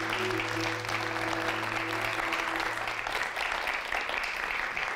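Audience applauding with steady clapping. The last held notes of background music fade out under the clapping a little past halfway.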